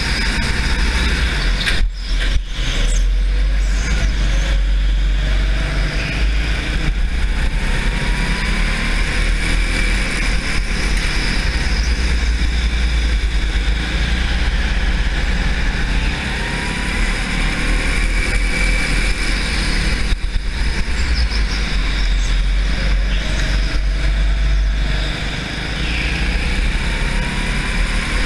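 RiMO indoor racing kart running flat out at race speed, heard from onboard, with a heavy low rumble under a steady mechanical drone. Its pitch rises briefly a few times as it accelerates out of corners.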